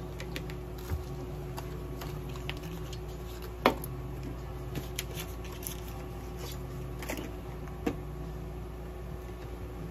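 Steady low room hum with a few short, sharp clicks and taps from supplies being handled on a steel exam table; the loudest click comes about three and a half seconds in, another near eight seconds.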